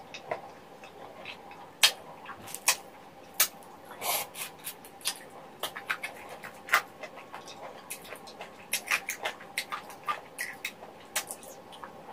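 Close-miked eating of spicy sauced chicken feet: a mouth gnawing and sucking skin off the bones, giving irregular sharp smacks and clicks.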